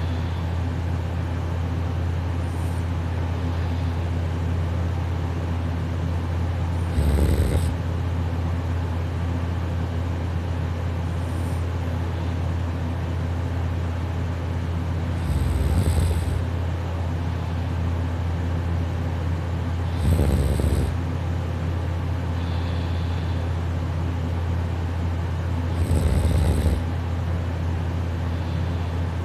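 A person snoring softly while sleeping on their side: four snores, each about a second long and several seconds apart, over a steady low hum.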